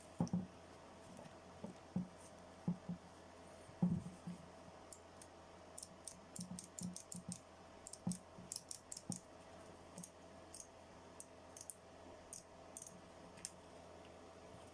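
Irregular light knocks and sharp clicks from tools and small parts being handled while a drill is worked on. A few duller knocks come first, then a quick run of sharp clicks from about five seconds in, thinning out near the end.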